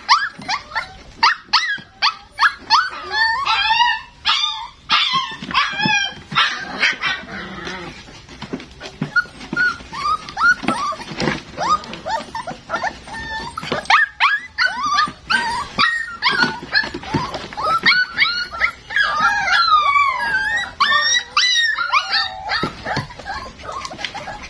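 Several young puppies whimpering and yelping: many short, high cries overlapping one another, with a longer drawn-out cry that falls in pitch about twenty seconds in.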